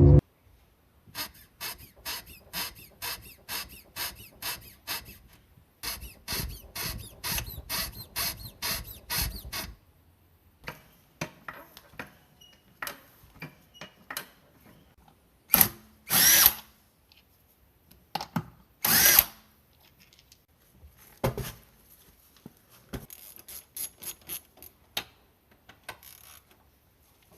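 Power tool run in two stretches of rapid even pulses, about three a second, followed by scattered clicks and a few short louder bursts.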